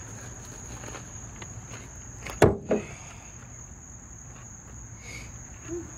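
Crickets chirping in a steady high drone, with two sharp knocks about a quarter second apart near the middle.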